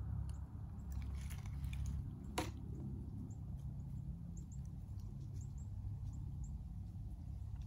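Scattered small clicks and rattles of tree-climbing gear being handled at the trunk, with one sharper click about two and a half seconds in, over a low steady rumble.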